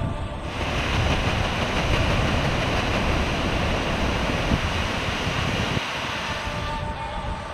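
Ocean waves breaking: a steady rushing noise with a deep rumble under it, which comes up about half a second in and fades near the end.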